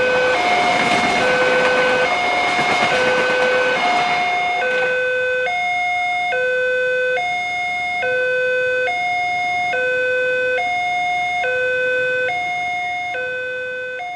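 Railroad level-crossing warning alarm from the loudspeaker on the crossing signal post, alternating between two tones a little under a second each. A passenger train rolls past under it for the first four to five seconds and then fades away, leaving the alarm sounding on its own.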